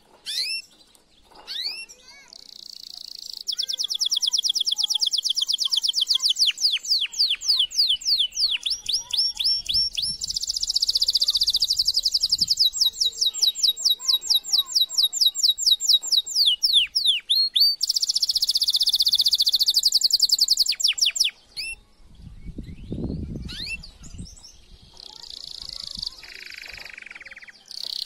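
Male canary singing a long, fast song of rapid high trills and rolls broken by quick downward-sweeping notes: a male's courtship song to a female.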